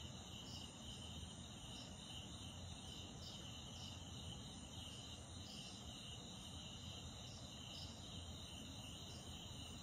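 Crickets and other night insects chirping steadily, with a regular pulse in the high chirping a little more than once a second. A faint low hum runs beneath.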